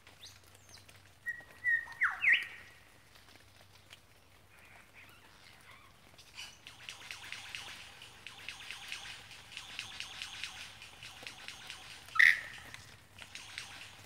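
Superb lyrebird calling: a few loud whistled notes that sweep sharply up and down about two seconds in, a long run of rapid repeated notes through the middle, and one loud call near the end.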